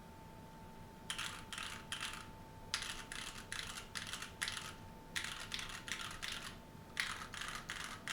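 Keychron Q2 mechanical keyboard with stock Gateron Brown switches being typed on: runs of quick keystrokes in bursts with short pauses between them, starting about a second in.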